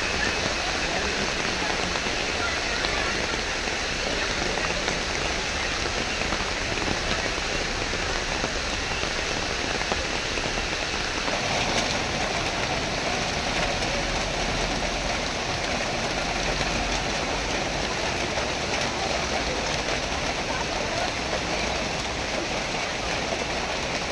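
Steady rain pouring onto a wet road and trees: a continuous, even hiss.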